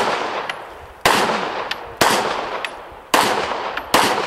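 Single gunshots at about one a second, four in all, each a sharp crack with a long echoing decay.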